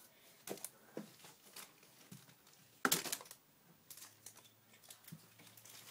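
Scattered light clicks and rustling handling noises, with one louder rustling burst about three seconds in.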